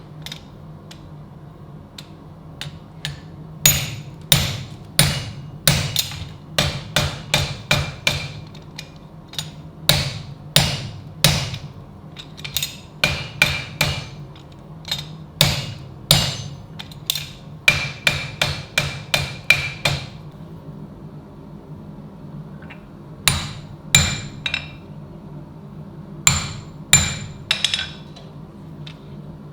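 Hammer blows on steel, struck in irregular runs, each with a short metallic ring; the blows stop for about three seconds past the middle, then resume. A steady low hum runs underneath.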